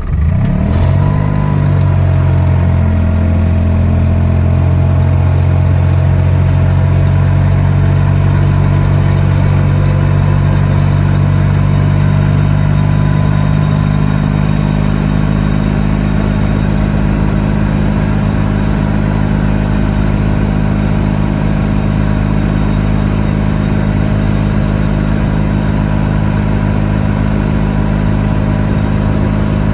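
Ligier Ambra microcar's Lombardini two-cylinder diesel, heard loud from inside the cabin: the revs climb over the first couple of seconds as the car pulls away, then hold at a steady drone as it drives on.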